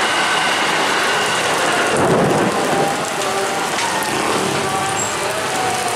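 Heavy rain pouring steadily, with a rumble of thunder swelling about two seconds in.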